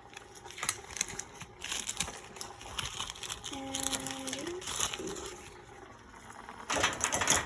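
Crinkling and rustling of a plastic bag of dried herbs being handled, with scattered crackles and a louder burst near the end.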